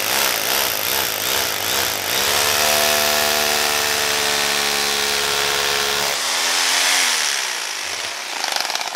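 Electric drill boring into a bowling ball next to the thumb insert, the bit grinding through the ball's shell. The motor runs at a steady pitch, then slows and winds down in the last couple of seconds.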